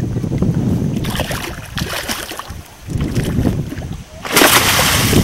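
Wind buffeting the microphone, then a loud splash about four seconds in as a hooked fish thrashes at the water's surface.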